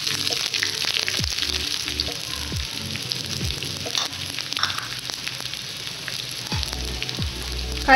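Chopped shallots and a dried red chilli sizzling in hot coconut oil in a small iron tempering pan, with scattered crackles and pops from the spluttering mustard seeds.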